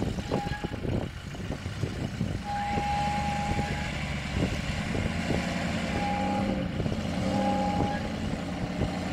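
Land Rover Discovery 1's V8 engine working at low revs, its note rising and falling as the truck crawls through a deep off-road rut. A steady high beeping tone sounds on and off over it, once for over a second.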